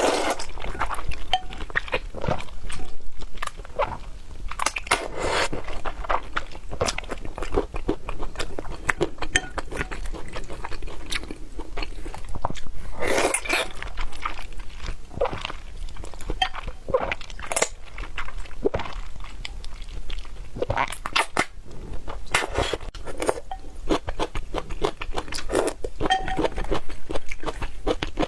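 Close-miked eating: crunchy bites and chewing, with many irregular short crunches and smacks.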